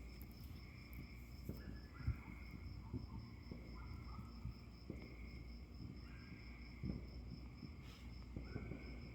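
Crickets chirping steadily in a high, rapid pulse, with a second insect's lower call swelling every second or two, and a few faint low thumps underneath.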